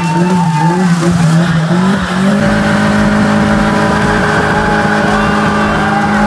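Old rear-wheel-drive sedan's engine revved hard during a burnout, the revs wavering for about two seconds and then held steady at a high pitch while the wheels spin and the tyres squeal.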